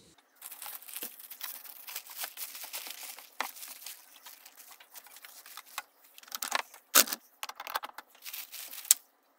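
Carrier bag and plastic wrapping rustling and crinkling as a coffee machine and its parts are unpacked onto a table, with many small clicks and a few sharp knocks, the loudest about seven seconds in.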